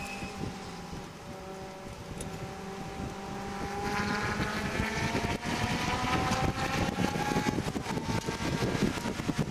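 Mitsubishi Lancer's engine, heard from inside the cabin, at light throttle through a corner, then pulling hard under full acceleration from about four seconds in, its pitch rising steadily with the revs. Near the end the pitch drops once as it shifts up, over wind and road noise.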